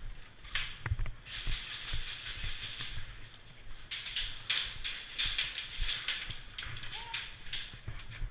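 Airsoft guns firing in rapid strings of sharp snapping shots, about seven a second, in two runs with a short break between them, along with low thumps.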